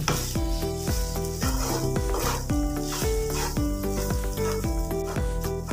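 Background music with a steady beat and melodic notes, over a wooden spatula stirring and tossing cooked basmati rice in a hot frying pan with a light sizzle.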